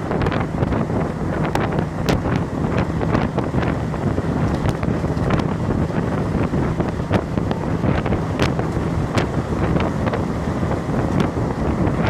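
Wind buffeting the microphone at the open window of a moving bus, over a steady low rumble of the bus's engine and road noise, with frequent short sharp clicks and knocks.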